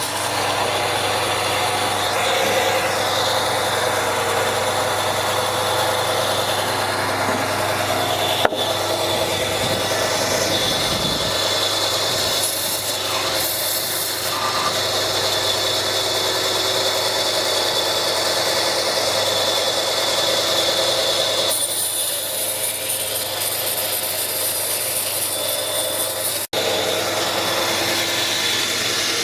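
Woodworking sounds: wood being sawn and rasped, over a steady low machine hum. The sound changes abruptly twice, at cuts between clips.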